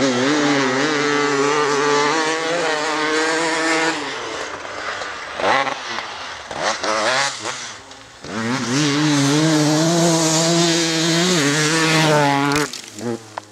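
KTM 300 EXC's single-cylinder two-stroke engine revving hard: held at high revs for several seconds, then several quick blips of the throttle, then held high again before the revs drop away near the end.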